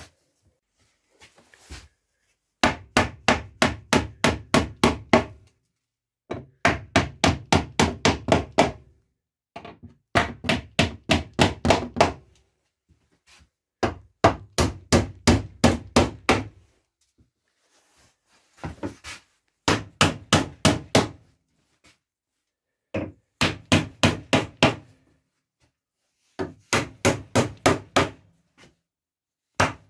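Claw hammer driving nails into wooden planks: runs of about eight to ten quick blows, three to four a second, with short pauses between runs.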